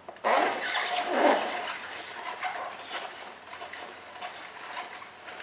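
Manual hand-crank juicer being cranked as its plastic auger crushes spinach leaves. It starts loud and uneven for about the first second and a half, then settles into a steadier grinding with small clicks.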